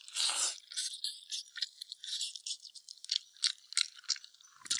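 Close eating sounds from gnawing and chewing on braised pig's trotters: a quick, irregular run of clicks, smacks and crackles.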